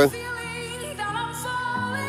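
Background music: a slow melody of long held notes.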